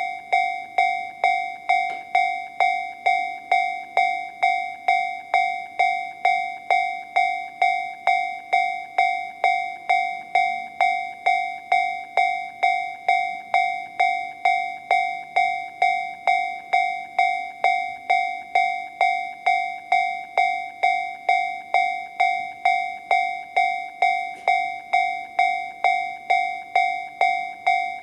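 Japanese railway level-crossing warning alarm sounding the Tobu 'sound C' tone from a Toho Denki TA3-VR electronic alarm sound generator: a bell-like ringing strike repeating evenly about one and a half times a second, each strike dying away quickly.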